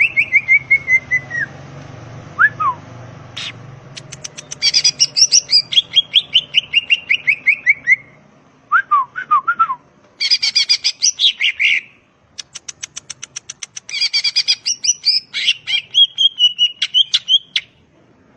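Cucak ijo (green leafbird) singing: loud phrases of rapid, sharp, repeated notes and falling whistled trills, broken by short pauses.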